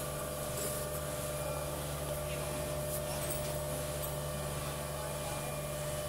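Automatic vacuum membrane press running: a steady machine hum with a few held tones.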